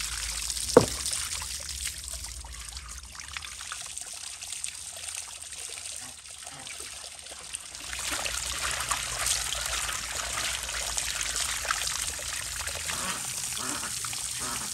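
Water from a hose streaming and splashing over a whole raw lamb carcass as it is rinsed, louder from about eight seconds in. A single sharp knock about a second in is the loudest sound.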